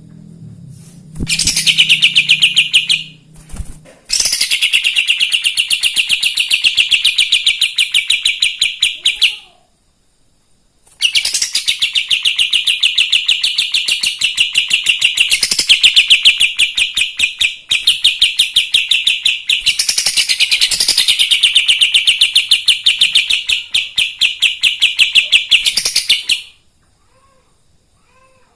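Kapas tembak songbird singing a loud, rapid chattering trill of sharp repeated notes in long unbroken bursts. It pauses briefly twice and stops a couple of seconds before the end.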